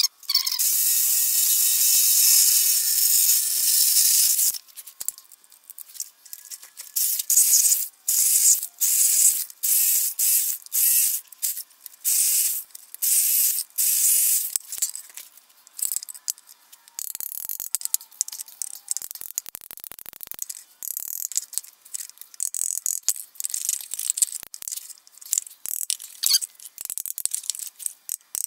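Reciprocating saw cutting through a 4-inch PVC pipe fitting. It runs steadily for about four and a half seconds, then in many short bursts of a second or less.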